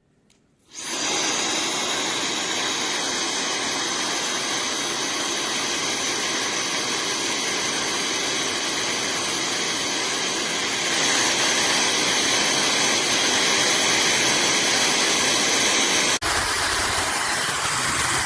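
AINA high-speed hair dryer with a brushless motor starting up about a second in and running steadily: a rush of air with a thin high whine. It gets louder about halfway through, then cuts out for an instant near the end and comes back with a deeper rush.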